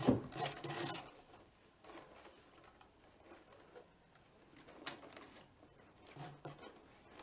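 Leather tabla strap (badhi) being handled and drawn through the holes in the drum skin's rim: a knock and rasping rub at the start, quieter scraping after, and a sharp click about five seconds in.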